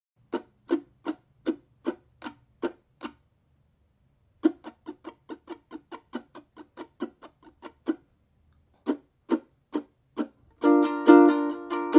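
Acoustic-electric ukulele strummed in short, clipped strokes, first a slow even beat and then a faster down-up-DOWN-up pattern with some strokes louder than the rest. Near the end the strings ring out in full sustained chords.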